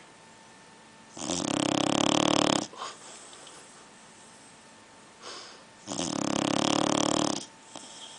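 Pit bull snoring in its sleep: two long, loud snores about four and a half seconds apart, each about a second and a half, with soft breaths between them.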